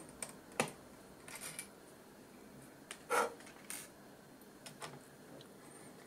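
Screwdriver working small screws out of a laptop's silver metal panel: a few scattered light clicks and short scrapes of metal on metal.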